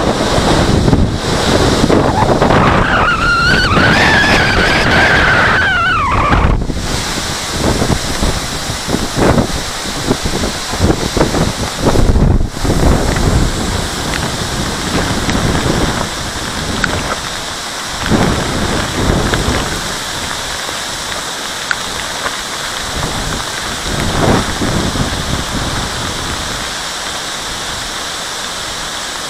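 Strong storm wind gusting and rushing, buffeting the microphone, with a brief high whistle rising and falling a few seconds in. The gusts ease to a steadier rush in the second half.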